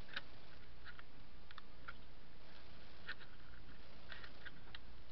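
Faint, irregular small clicks from a plastic CRT deflection yoke being handled and turned in the hand, over a steady background hiss and low hum.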